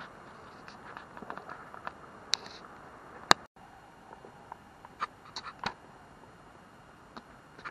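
Scattered light clicks and knocks of split wood and twigs, with two sharper knocks a little past two and three seconds in and a few fainter clicks later on.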